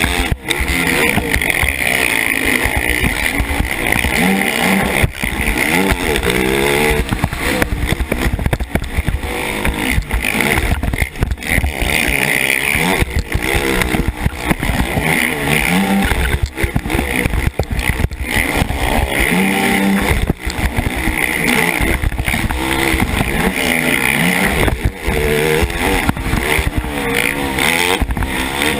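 Racing quad's KTM 450 SX single-cylinder four-stroke engine, heard from a helmet camera, revving up and dropping back over and over through the gears and corners, with sharp knocks from the quad landing and hitting bumps.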